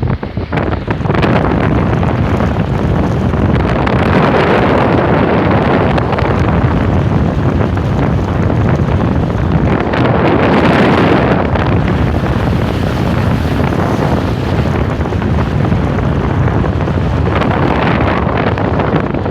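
Wind buffeting the microphone: a loud, steady rush of noise that swells and eases every few seconds.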